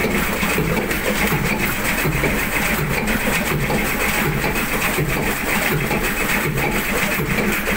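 Old tug boat's diesel engine running steadily with an even, regular beat, heard from inside the engine room.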